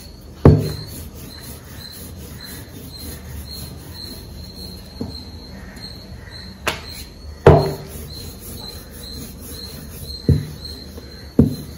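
Wooden rolling pin rolling a thin sheet of wheat dough on a wooden table, with six sharp knocks as the pin and the dough sheet are handled and set down. The loudest knocks come about half a second in and about seven and a half seconds in.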